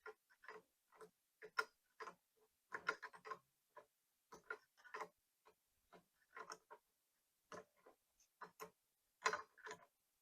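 Faint, irregular clicks and taps of hand tools and small metal parts being handled, some single and some in quick little clusters.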